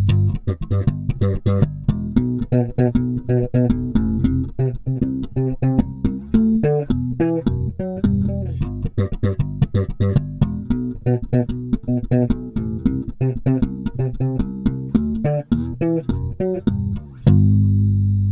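Warwick Rockbass Streamer Standard 4-string electric bass playing a quick run of plucked notes with both pickups blended, ending about 17 seconds in on a long ringing note.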